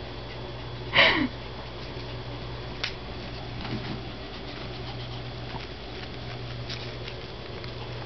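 A toy poodle gives one short, loud yelp about a second in, its pitch falling, followed by faint sniffing and light ticking, with a steady low hum underneath.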